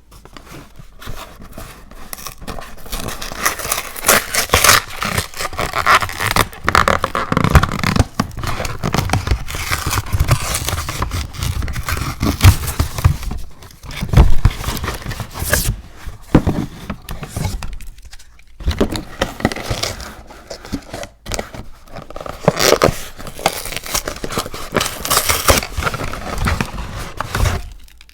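Close-up scraping and crackling with frequent sharp clicks, from hands working a toy ICEE slushie maker, loudest about halfway through.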